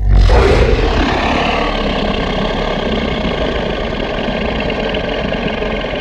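Synthetic Tyrannosaurus rex roar sound effect: a deep, steady roar, strongest at the very bottom, that starts suddenly and is loudest in its first second.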